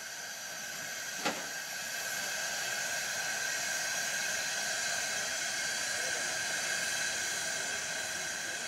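Rhaetian Railway G 4/5 steam locomotive standing with steam hissing steadily from around its cylinders, growing slightly louder after the first couple of seconds. A single sharp click sounds about a second in.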